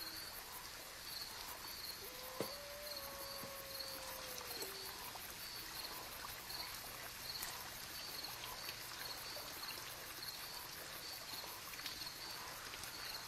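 Night ambience of crickets chirping in a steady, regular pulse over a faint hiss. About two seconds in, one long wailing tone holds a single pitch for a couple of seconds, then drops away.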